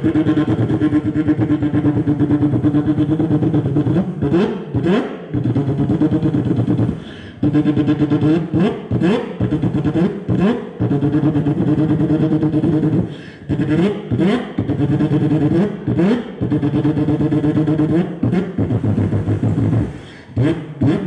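A man vocally imitating a car engine into a microphone: a steady, pulsing idle broken several times by short revs that sweep up in pitch.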